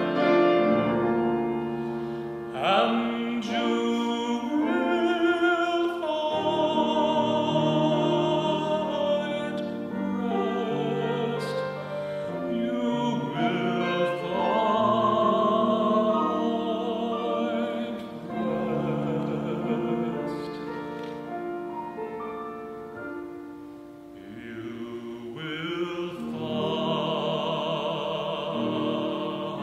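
A solo voice singing in a classical, operatic style with a wide vibrato, accompanied by piano. It softens briefly about three quarters of the way through, then swells again.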